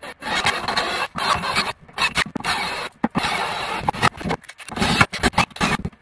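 Ryobi One+ cordless drill with a step bit boring a large hole through the wall of a plastic enclosure, run in several bursts of a second or so with short pauses between them.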